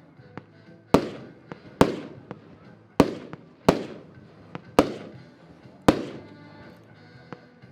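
Diamond 'Heaven on Earth' 30-shot consumer firework battery firing: six loud bangs roughly a second apart, each trailing off in a fading echo, with a few smaller cracks in between.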